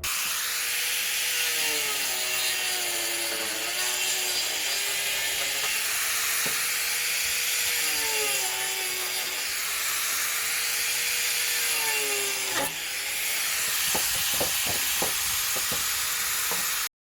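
Angle grinder fitted with a wood-cutting saw disc, running and sawing through old wooden fence boards. Its motor whine dips in pitch several times as the blade bites into the wood, with a few knocks near the end, then it cuts off suddenly.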